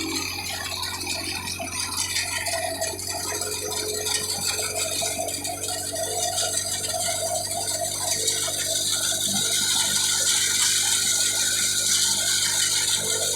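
Wheat threshing machine running: a steady mechanical hum under a dense, continuous rattle, getting louder about eight seconds in.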